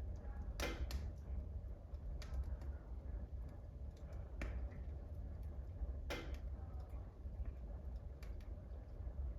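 Wood fire burning in a wood burner stove, crackling with sharp pops at irregular intervals; the loudest pops come about half a second in and about six seconds in, over a steady low hum.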